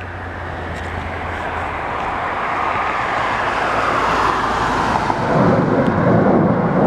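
An airplane passing overhead, its engine noise growing steadily louder and turning deeper in the last couple of seconds.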